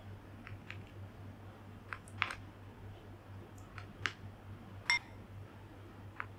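Small plastic spoon scooping rice from a ceramic bowl and tapping it into a plastic rice-ball mould: a scattering of light clicks and taps, the loudest a short ringing tap about five seconds in.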